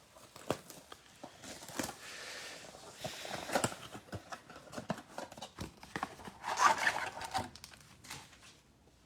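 Trading-card packaging being torn open and crinkled by hand, with scattered handling clicks and rustles; the loudest crinkling comes about seven seconds in.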